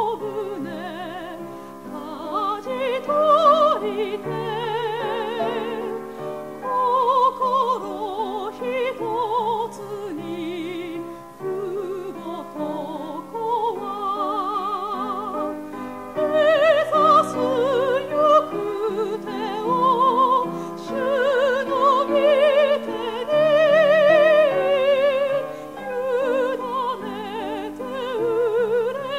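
Japanese hymn sung with wide vibrato over a steady instrumental accompaniment, the melody moving through long held notes.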